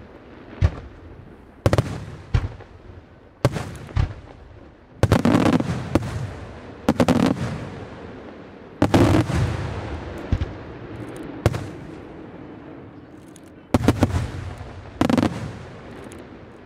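Aerial firework shells bursting overhead: about fifteen sharp bangs at uneven intervals, some in quick pairs, each trailing off in a long rolling echo.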